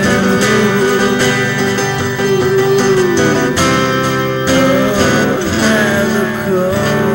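Acoustic guitar strummed in a slow ballad, with a held melody line above it that bends and wavers in pitch.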